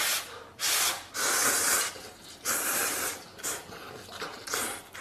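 Noodle soup being poured from the pot into a large bowl, in several short splashing pours.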